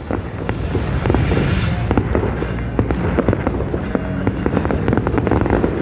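Aerial fireworks going off in rapid succession: many sharp bangs and crackles close together, with shells bursting and more launching.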